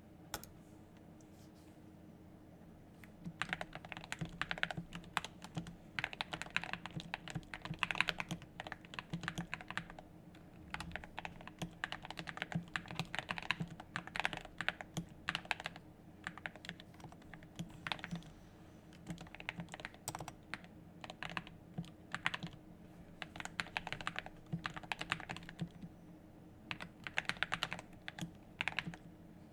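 Typing on an SK61 keyboard with lubed Gateron Black linear mechanical switches: runs of rapid keystrokes broken by short pauses, starting about three seconds in after a lone keystroke.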